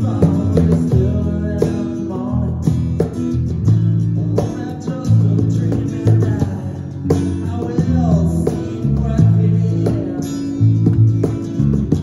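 A small band playing a song live: strummed acoustic guitar and electric bass under a sung lead vocal, with a steady beat.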